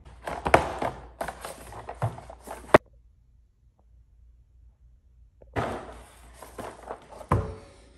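Household handling noises: rustling with several sharp knocks in the first few seconds, the last one the sharpest, then after a pause another burst of rustling with a dull thud near the end.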